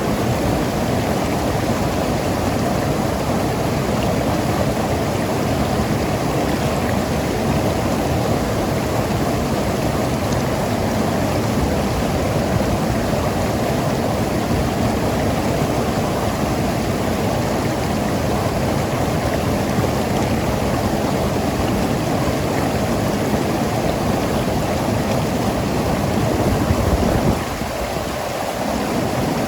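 Mountain river rushing and gurgling over rocks, a steady flow of water that turns briefly softer near the end.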